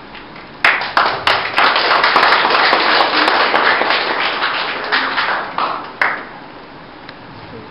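A small group of people applauding: a few sharp claps, then a burst of dense clapping that fades away, ending with one last clap.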